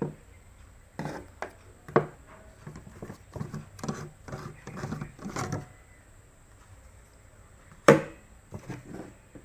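Irregular clicks and knocks of an object being handled, with a sharper, louder knock about 8 seconds in.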